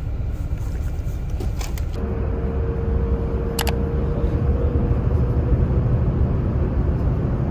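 Low rumble of a bus on the move, heard from inside its cabin. A steady hum joins after about two seconds, and there is one sharp click around the middle.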